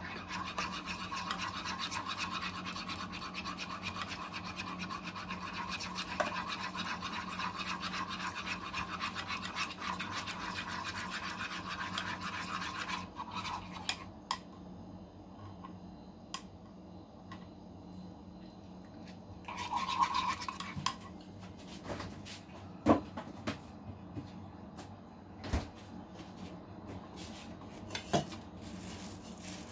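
A spoon stirring quickly in a small metal saucepan of mango mixture, scraping steadily against the pan for about the first thirteen seconds. Then come a few light knocks and clinks of the pan and utensils being handled.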